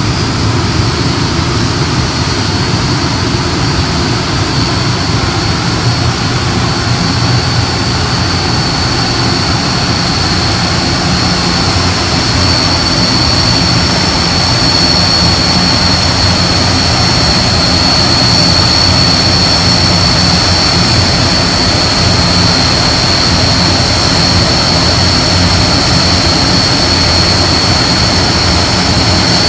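AVIC AG600 amphibious aircraft's four turboprop engines running as it taxis: a steady propeller drone with a high turbine whine, growing slightly louder about halfway through.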